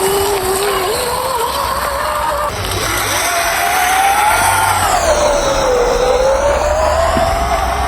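Whine of a 1/12-scale RC crawler's electric motor and gear train, its pitch rising and falling as the throttle is worked, dipping lowest about six seconds in.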